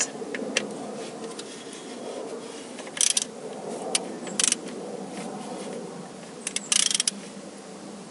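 Ratchet wrench clicking in three short bursts, about three, four and a half and seven seconds in, as a 12 mm socket works the nut on the starter motor's cable terminal, over a steady hum.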